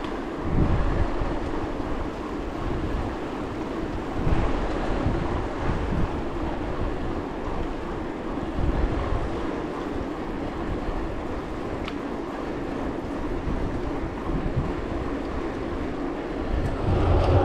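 Wind buffeting an action camera's microphone while riding a bicycle, with a steady rumble of tyres on a gravel forest road and a sharp click about twelve seconds in.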